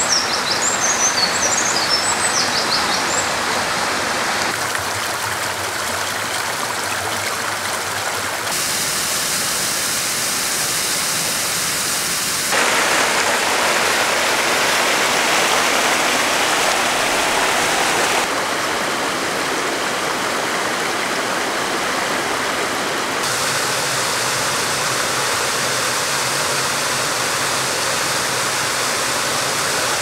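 Mountain stream rushing over rocks and small waterfalls, a steady rush of water whose tone and loudness change abruptly several times from shot to shot. A small bird chirps rapidly in the first few seconds.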